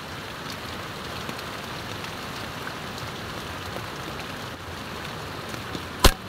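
Heavy rain falling steadily on water and marsh plants, then about six seconds in a single sharp crack of a PCP air rifle shot.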